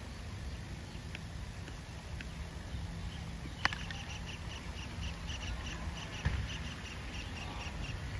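A cricket bat strikes a tennis ball once, a sharp crack about three and a half seconds in, on a shot that goes for six. Soon after, a high chirp starts repeating about four times a second over a low wind rumble.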